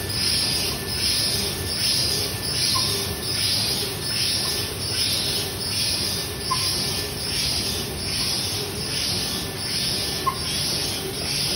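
Automatic woven-bag making machine running, fed from a reel of printed bag fabric: a steady mechanical din with a hissing pulse repeating about twice a second, and a few faint ticks.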